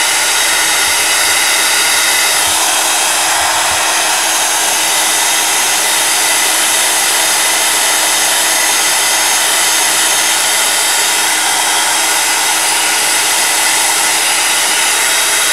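Handheld craft heat tool blowing steadily, a constant rush of hot air with a faint steady motor hum underneath. It is drying a coat of neon Lunar Paste on a card.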